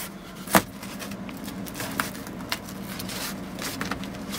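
Hands fitting a strip of foam insulation against the underside of the deck, rustling and tapping, with one sharp knock about half a second in and a few lighter ticks after. A faint steady hum runs underneath.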